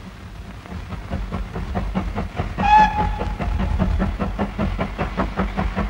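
Steam locomotive working a train, its exhaust beating in a quick, steady rhythm over a low rumble, with one short whistle blast just before the middle. The sound comes from an early 1935 film soundtrack.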